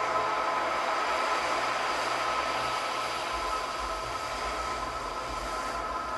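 Ocean surf washing in a steady, dense rush. A low rumble joins about halfway through, while the soft ambient music underneath nearly drops out.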